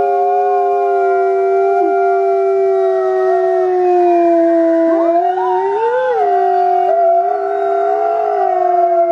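Several wolves howling together in chorus, long drawn-out notes at different pitches overlapping. One voice swoops up and back down a little past the middle.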